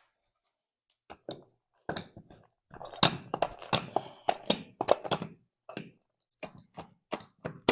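Heavy metal parts of a spur-geared chain hoist being handled and worked apart. The sound is an irregular run of clunks and taps that starts about a second in, with the loudest knocks around three and five seconds in.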